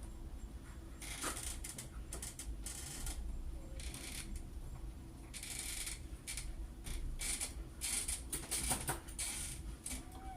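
Deadbolt lock parts and screws being worked by hand: irregular metallic clicks, rattles and short scraping sounds, over a steady low hum.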